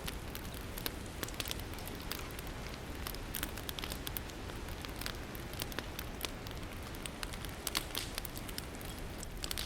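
Wood campfire crackling, with frequent irregular sharp pops over a steady hiss.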